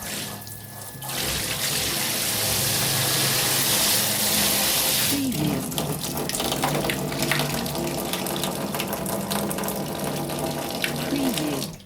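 Shower running: a dense hiss of water spray that builds up about a second in. From about five seconds in it breaks into uneven splashing and spattering. It stops abruptly at the very end.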